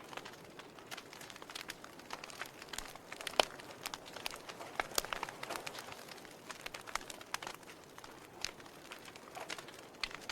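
Wood fire burning in a fireplace: irregular crackling and snapping over a soft hiss, with one sharp pop about three and a half seconds in.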